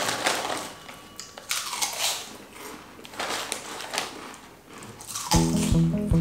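A plastic snack bag crinkling in uneven bursts as it is handled and squeezed. Music with a steady beat starts near the end.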